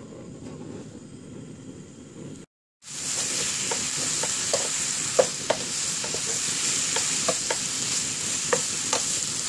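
Pre-seasoned sliced beef sizzling in a nonstick frying pan as a wooden spatula stirs and tosses it, with scattered clicks of the spatula against the pan. It is quieter at first, then after a brief dropout about three seconds in the sizzle is loud and steady.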